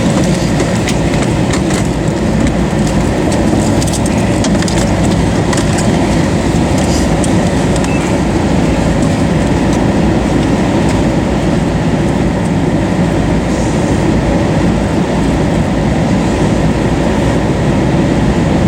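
Loud, steady roar of an EF5 tornado's winds at close range, deep and rumbling, with scattered light ticks over it.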